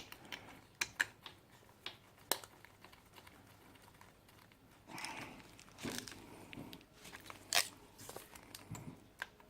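Small scattered clicks, taps and scrapes of a spark plug and tools being handled while the plug is threaded by hand into a motorcycle cylinder head. There is a sharper click about two seconds in, another near the end, and brief rustling in between.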